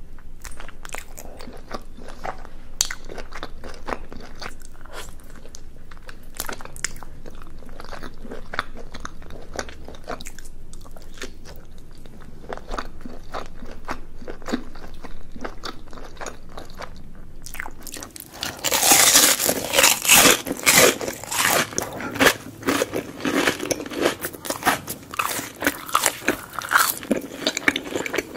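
Close-miked chewing of sticky, sauce-coated Korean rice cakes (tteok), a steady run of soft wet mouth clicks. About 18 seconds in it gives way to louder, crisp crunching bites and chewing of fried food from a burger, fries and onion rings meal.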